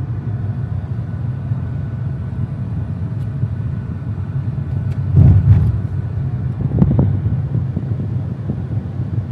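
Steady low road and engine rumble of a car driving in city traffic, with two louder swells of rumble about five and seven seconds in.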